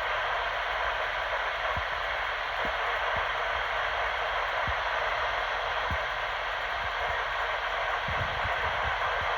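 Steady radio static hiss from a weather-radio receiver carrying no speech, with scattered faint low pops.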